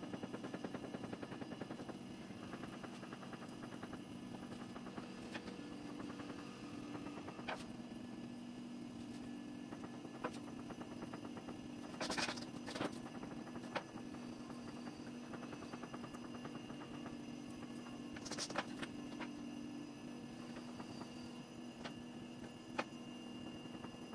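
Steady electric hum holding a low pitch, with light clicks throughout and sharper clattering knocks about halfway through and again about three-quarters of the way in.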